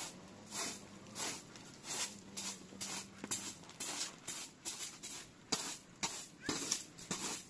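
A bundled-straw hand broom sweeping a woven rug: quick repeated swishing strokes, about two a second.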